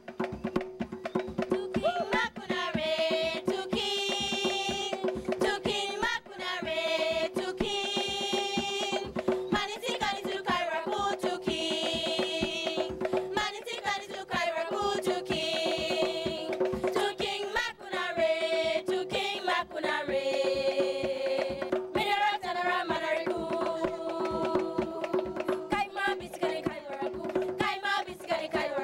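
Instrumental folk music: a melody played over a steady drone, with busy hand percussion throughout.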